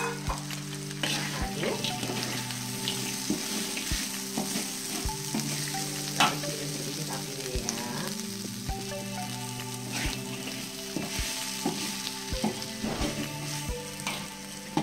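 Diced tempeh and salted squid frying in oil and chili spice paste in a wok, sizzling steadily, while a spatula scrapes and knocks against the pan as the pieces are stirred.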